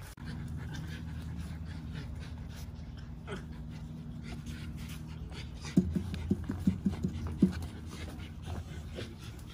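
Miniature Schnauzer puppy panting over a steady low hum. About six seconds in there is a brief cluster of short, louder sounds.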